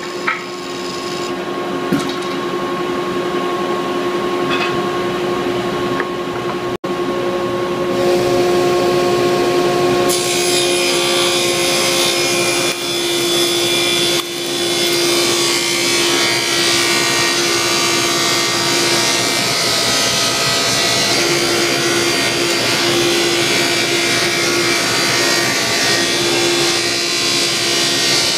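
Table saw running and ripping a 2x4 lengthwise. A steady motor hum carries throughout, with the hiss of the blade cutting wood that gets louder about ten seconds in. The sound breaks off for an instant about seven seconds in.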